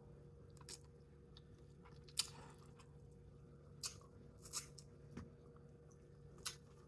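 A person chewing food close to the microphone: quiet chewing with about six short sharp mouth clicks and crunches, over a faint steady hum.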